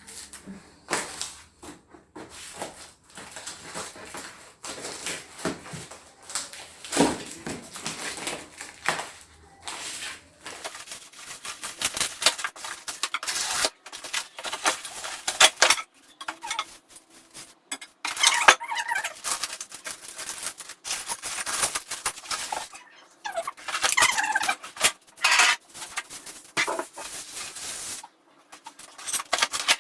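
Irregular knocks, clicks and rattles of flat-pack furniture parts being handled and fitted together, with a few short squeaks.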